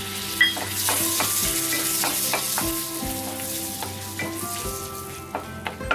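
Whole spices (cinnamon stick, cloves, bay leaves) sizzling in hot oil and melted butter in a wok as they are tempered, stirred with a wooden spatula that knocks against the pan now and then. The sizzle eases off toward the end.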